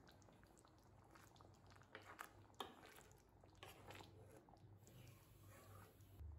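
Faint wet scraping and soft knocks of a wooden spatula stirring thick egg curry in a kadai, starting about two seconds in, with one sharper click about halfway through.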